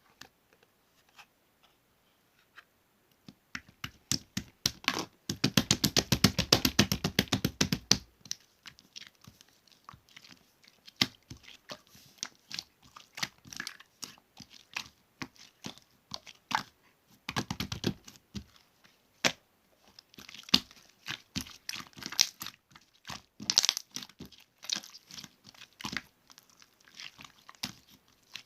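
Slime being squished, stretched and pressed by hand, making sticky clicks and crackling pops. The popping turns dense and rapid for a few seconds about five seconds in and again briefly around seventeen seconds.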